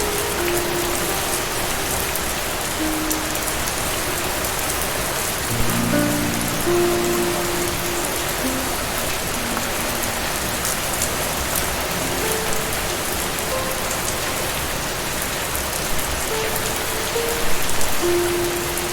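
Steady rain falling, with slow, sparse notes of soft relaxation music over it.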